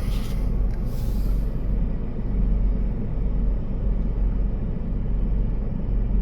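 Steady road and engine rumble heard from inside an SUV's cabin while it drives along at highway speed.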